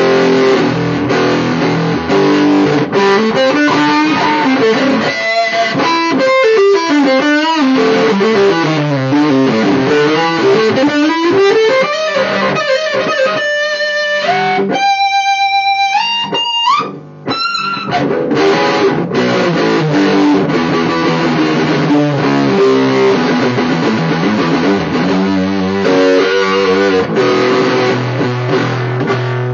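Electric guitar played through a DIY distortion/overdrive circuit built around an MPSA13 transistor with LM386 and TDA2003 amplifier chips. It plays riffs and single-note runs that sweep down and back up in pitch. A high held note steps upward and briefly cuts out, then chords follow.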